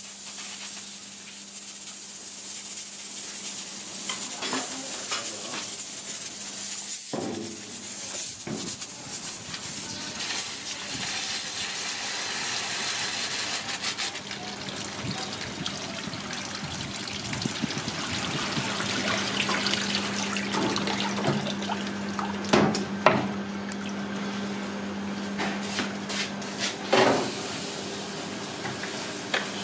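Tap water pouring and splashing over an aluminium pressure cooker standing in a basin of water in a sink, quick-cooling it so the pressure drops before opening. A few sharp knocks follow near the end as the cooker is handled.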